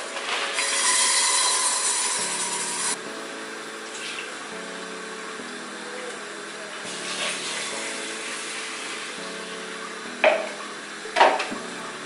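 Dry basmati rice poured from its bag into a metal cooking pot: a hissing rush of grains lasting about three seconds, followed later by two sharp knocks near the end.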